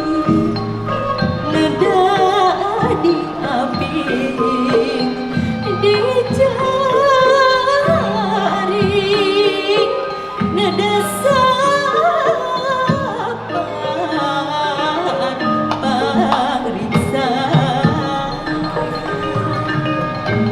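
Sundanese gamelan degung ensemble playing a piece: struck bronze metallophones and gongs, with low gong tones re-struck every second or two under a wavering melody line.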